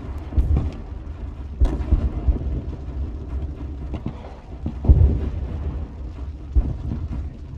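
Battle ambience: a constant low rumble of distant explosions, with repeated deep booms and scattered sharp gunshot cracks. The loudest boom comes about five seconds in.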